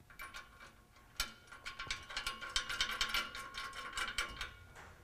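Rapid metallic clicking and rattling with a light ringing of steel, starting about a second in and stopping shortly before the end, as an aftermarket exhaust tip is worked by hand on its pipe.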